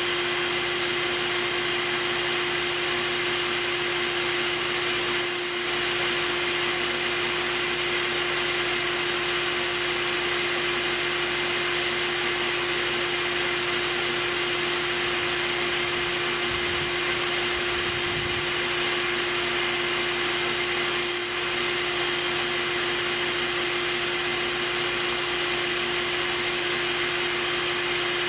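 Vacuum motor running steadily with a constant whine, as used to suck honeybees out of a wall during a hive removal. The level dips briefly twice.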